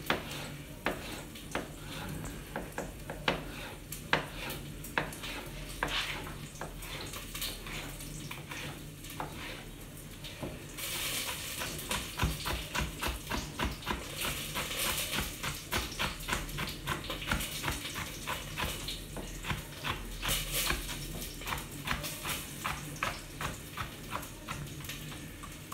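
Chef's knife chopping red pepper on a plastic cutting board: spaced slicing strokes at first, then quick, rapid dicing strokes from about halfway. Oil sizzles in the background as garlic and ñora pepper fry in it.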